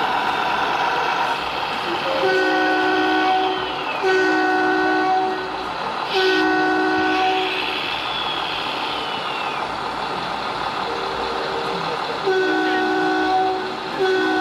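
A model truck's sound module sounding a multi-note air horn: a series of long blasts about a second and a half each, about six in all, with a gap in the middle.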